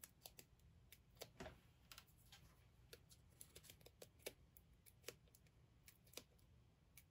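Faint, irregular little clicks and ticks of fingernails picking the paper backing off foam adhesive pop dots on a small cardstock piece; otherwise near silence.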